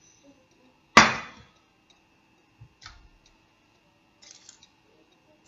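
Metal pail banging once, loud and sharp, about a second in, the clang dying away quickly, followed by a few faint knocks and rustles.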